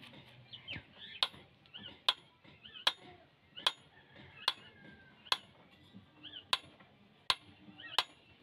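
Small hammer tapping a nail into the iron socket of a pharsa (axe head) to pin its bamboo handle: sharp metallic taps with a brief ring, evenly paced at about one every 0.8 seconds.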